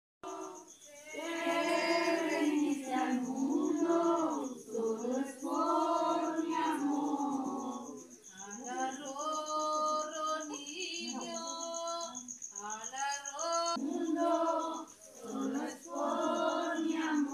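A small group of mixed voices singing a Christmas carol together without instruments, in long held phrases with women's voices most prominent; the singing dips briefly twice between phrases.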